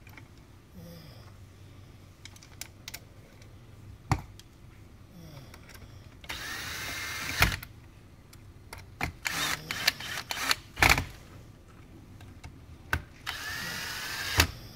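Cordless drill driving screws into a metal battery tray. The motor whine comes in three spells: one about six seconds in, a cluster of short bursts around ten seconds, and another near the end. Sharp knocks of metal on metal come between the spells.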